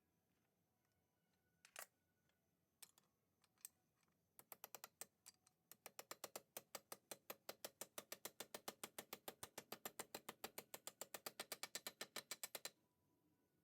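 Faint, rapid, evenly spaced mechanical clicking, about seven clicks a second, beginning about four seconds in after a few single clicks and stopping shortly before the end.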